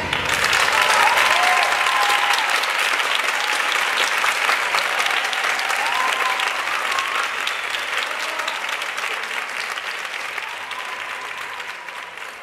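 Audience applauding: dense clapping that slowly fades toward the end, with a few brief high calls rising over it.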